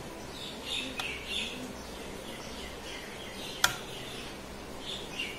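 Birds chirping in the background: a scatter of short, high chirps, with one sharp click about three and a half seconds in.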